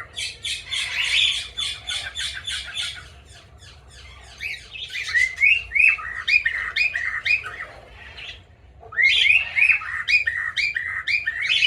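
A flock of small parrots (cockatiels, parakeets and lovebirds) chirping and chattering in quick runs of sharp, high chirps, in three bouts with short lulls between them.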